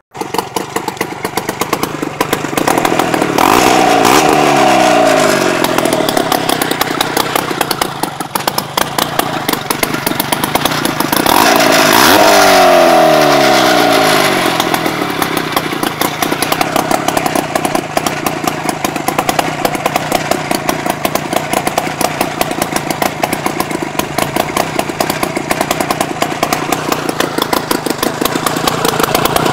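Rotax 399 cc twin-cylinder two-stroke snowmobile engine on a go-kart running, just got going again after being blown up. It is revved twice, about three seconds in and again about eleven seconds in, each time falling back in pitch to an uneven, pulsing idle.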